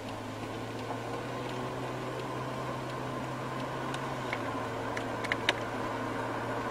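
Steady road and engine noise inside a moving car's cabin, with a low hum, growing slowly louder. A few sharp ticks about five seconds in.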